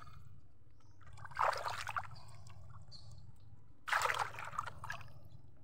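Water trickling and splashing in two short bursts as a gill net is worked in shallow water, over a steady low rumble.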